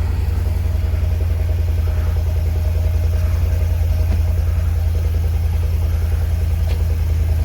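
Ford 7.3-litre gas V8 in a 2020 F-250 Super Duty idling steadily with a deep, even rumble just after a cold start.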